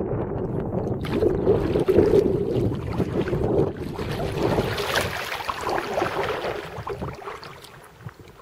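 Water rushing and splashing around a kayak on the river, with wind on the microphone. It fades near the end.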